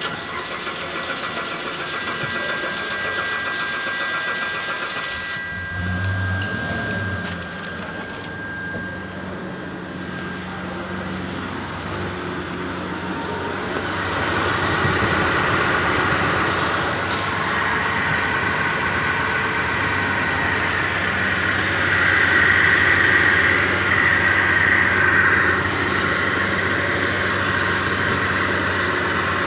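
Mitsubishi Montero Sport 6B31 engine cranking for about five seconds before it catches, then idling steadily. This is its first start after the in-tank fuel pump and fuel filter were replaced. It gets louder from about halfway through, heard up close in the engine bay.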